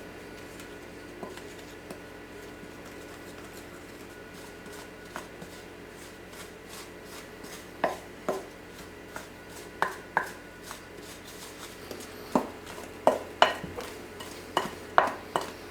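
Wooden spoon stirring thick muffin batter in a mixing bowl, with scattered knocks and scrapes of the spoon against the bowl. The first half is fairly quiet; the knocks start about halfway through and come more often near the end.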